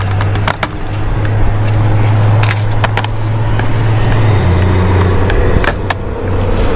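Sharp clicks and knocks of plastic interior trim being pried and pulled off: a few single snaps, some in pairs. Beneath them runs a steady low rumble like a motor vehicle.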